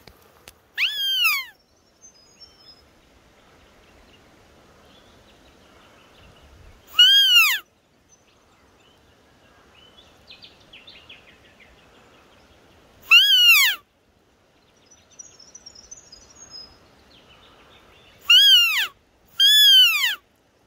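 Five loud, short deer-like bleat calls, each rising then falling in pitch. The last two come close together near the end.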